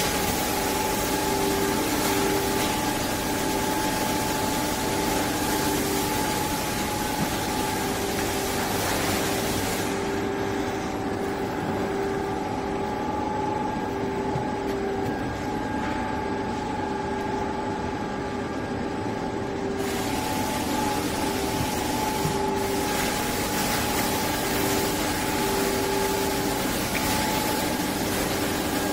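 2004 Officina Meccanica hot melt lamination machine running: a steady mechanical hum from its electric gear motors and rollers, with two steady tones over an even noise. The higher hiss dulls for about ten seconds in the middle.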